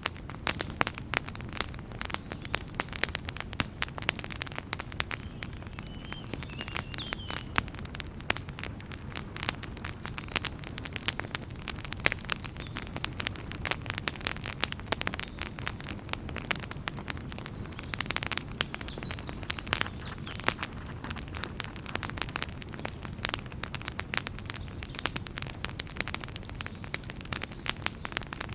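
Wood fire crackling and popping in a fireplace: dense, irregular sharp pops over a steady low rumble of the flames. A few faint high whistles come in briefly, once about a quarter of the way in and again past the middle.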